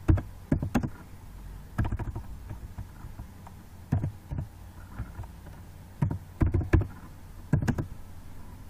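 Computer keyboard keys being pressed slowly and irregularly, sharp clicks singly and in quick clusters of two or three, over a steady low electrical hum.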